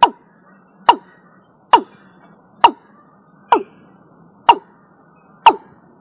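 Watercock (Gallicrex cinerea) calling: a steady series of short, sharp notes, each dropping in pitch, about one a second, seven in all.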